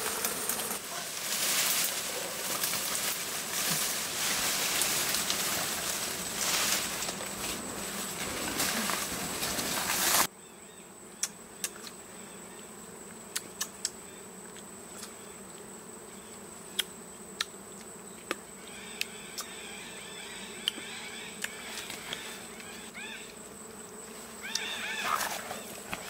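Swarm of giant honeybees buzzing loudly around their disturbed hive, with leaves and branches rustling, cutting off suddenly about ten seconds in. After that a much quieter stretch with scattered sharp clicks and faint chirping near the end.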